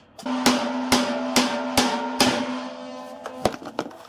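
Hammer blows on a bolt in the end of a washing machine drum's shaft, driving the shaft out of its seized bearings: five hard strikes about half a second apart, then a lighter one near the end. The struck steel drum rings on after each blow in a sustained metallic tone that slowly fades.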